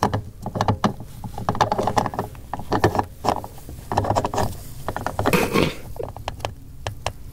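Fuel filler cap of a 1992 Volvo 740 Turbo being screwed by hand into the filler neck: plastic threads rubbing with a quick run of ratcheting clicks. A brief scrape about five and a half seconds in.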